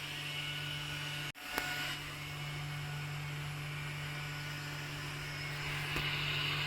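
Steady low electrical hum with background hiss. It drops out for an instant about a second in, and a faint click follows.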